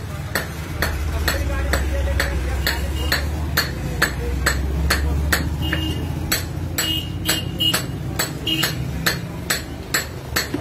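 Wooden stick knocking against metal pots and plates while working sugar syrup: sharp knocks, about three a second and unevenly spaced, over a low steady rumble.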